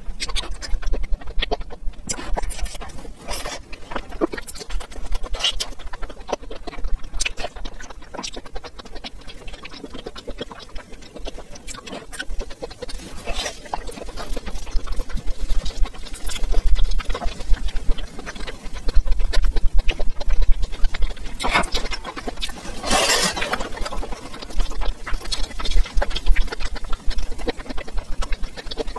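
Close-miked chewing and mouth sounds of a person eating stewed abalone, potatoes and rice, with many small clicks and ticks and now and then a wooden spoon knocking on the plate. A longer, louder rustling burst comes about three-quarters of the way through.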